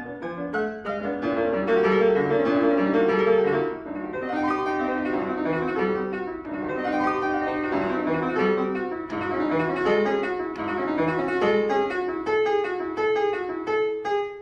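Solo piano playing classical music, a continuous stream of notes.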